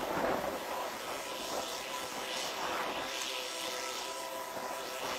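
Small narrow-gauge locomotive's engine running steadily as it approaches on uneven track, a steady mechanical hum with several even tones and a few brief hissy swells.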